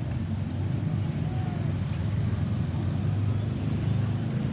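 Low, steady rumble of road traffic, a vehicle engine and tyres, with no siren sounding.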